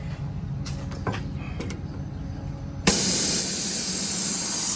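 A few light knocks, then a sudden loud rush of compressed air from the pneumatic drawer clamp's air cylinder and valve as it is actuated, holding steady for about two seconds before cutting off abruptly.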